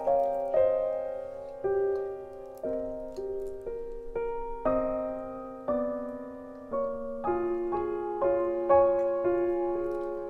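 Slow, gentle piano music: notes and soft chords struck about once or twice a second, each ringing and fading before the next.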